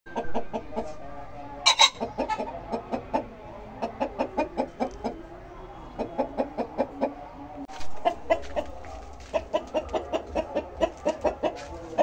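Domestic chickens clucking in quick runs of short clucks, several a second, with one louder, harsher call a little under two seconds in.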